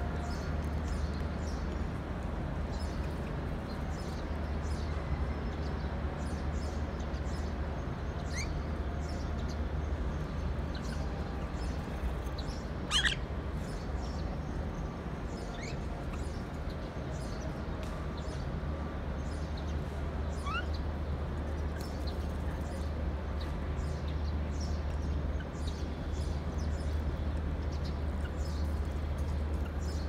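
Steady low outdoor background rumble with scattered short, high bird chirps; one louder chirp comes about halfway through.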